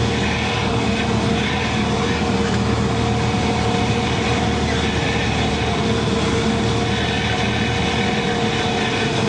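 Cessna 172's piston engine and propeller heard from inside the cockpit on final approach: a steady drone with a thin whine held above it, mixed with rushing wind noise.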